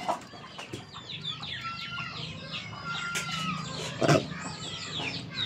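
Chickens clucking, with quick chirping calls throughout and one short, louder call about four seconds in.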